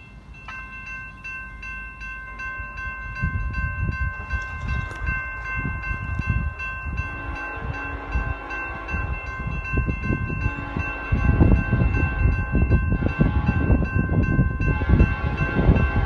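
EMD SD70ACe diesel locomotive approaching, its engine rumble growing steadily louder and stepping up about eleven seconds in, while its multi-chime air horn sounds one long, unbroken chord.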